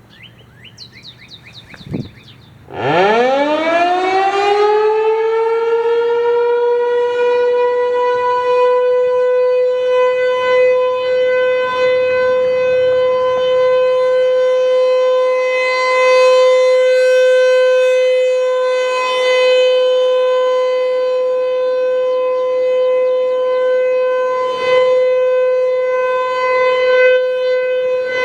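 ASC T-128 outdoor tornado warning siren winding up about three seconds in, its pitch rising quickly and then holding one loud, steady tone whose loudness swells and eases a little. It is sounding for a statewide tornado drill.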